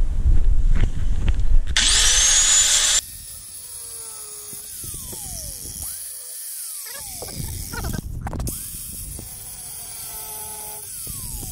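Angle grinder with a cut-off disc cutting the protruding tips off steel seat-mount bolts, run in several short bursts; each burst spins up quickly and its pitch sinks as the disc bites into the steel. A louder, brighter stretch near the start stops abruptly.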